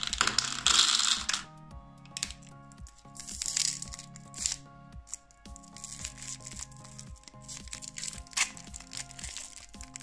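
Small pebble-shaped chocolate candies poured from a foil wrapper and rattling into a hard plastic egg half for about a second and a half at the start, then short bursts of crinkling as a lollipop wrapper is handled and peeled. Background music with steady held notes plays throughout.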